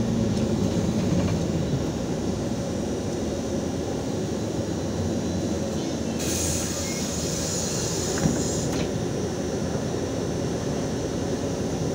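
Inside a LiAZ 5292 city bus rolling slowly: steady engine and road rumble, with the engine's hum easing off about two seconds in. About six seconds in, a hiss of compressed air from the bus's pneumatics runs for a couple of seconds, with a single knock near its end.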